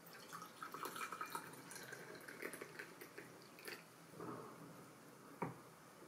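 Hot tea poured from a cast-iron teapot into a double-walled glass cup: a splashing trickle for about two seconds, then a few light ticks, and a single short knock near the end as the teapot is set back down.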